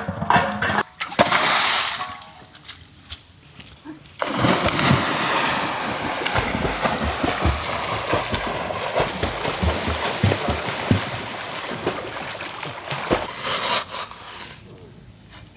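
Water splashing: a loud splash about a second and a half in, then a long stretch of churning splashes from people swimming in a pond, stopping shortly before the end.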